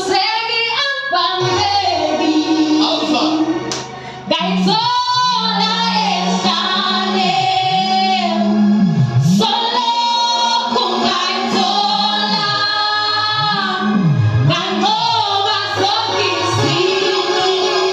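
Choir singing a gospel song, with a brief drop in loudness about four seconds in.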